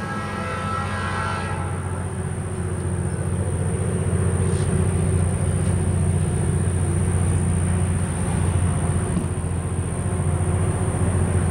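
Diesel switcher locomotive's horn dying away in the first two seconds, then its engine's steady low rumble.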